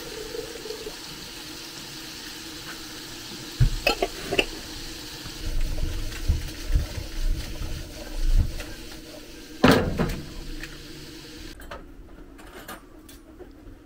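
Food sizzling in a frying pan, with a few sharp knocks and clatters of a utensil against the pan. The sizzle cuts off about two seconds before the end.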